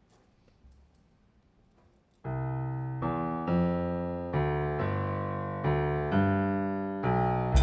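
Piano opening a jazz tune with a run of sustained chords, a new chord about every 0.7 s, after a couple of seconds of near quiet. The drums and the rest of the band come in right at the end.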